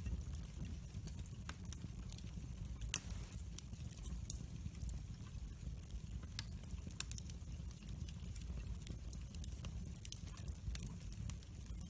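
Wood fire of split logs crackling, with irregular sharp pops; the loudest pop comes about three seconds in, over a low steady rumble.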